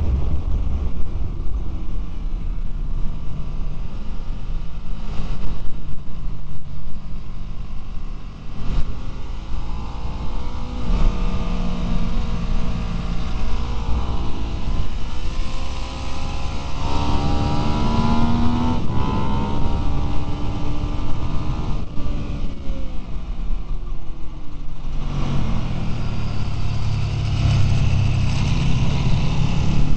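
Ducati 999 V-twin engine running hard on track, heard from onboard over a steady rush of wind. Its pitch climbs and falls through the gears, and the note turns deeper and louder about 25 seconds in as the bike goes into a corner.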